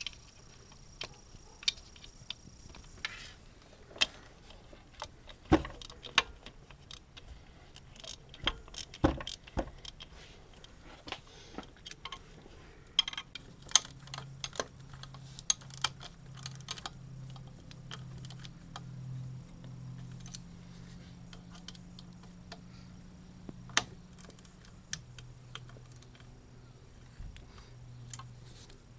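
Irregular metallic clicks and clinks of hand tools and small metal parts being handled during engine-bay work. A low steady hum joins about halfway through.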